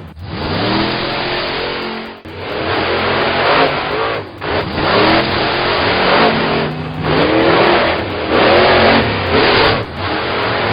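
Vehicle engine sound effects revving up over and over, each rev rising in pitch and breaking off after about two seconds.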